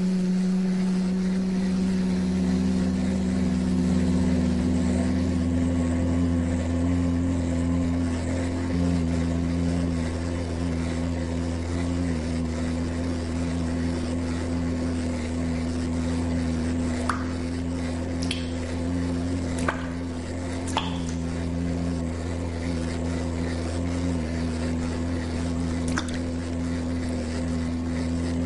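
Steady low hum made of several held tones over a deep drone, with a few faint clicks in the second half.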